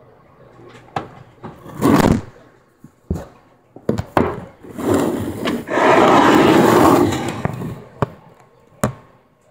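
Handling noise close to the microphone: several sharp knocks and scrapes, with a loud rough rushing scrape from about five to seven and a half seconds in.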